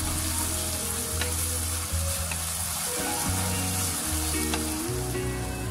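Carrots and Brussels sprouts sizzling steadily in hot oil in a nonstick wok as they are stir-fried with a wooden spatula, with a few light clicks of the spatula against the pan.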